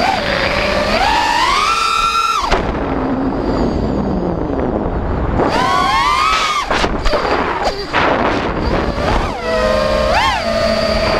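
Brushless motors and propellers of a 5-inch FPV quadcopter whining, the pitch rising and falling with the throttle. About two and a half seconds in the whine drops away to a low rush of air, then rises again a few seconds later, followed by a choppy flutter before steadying.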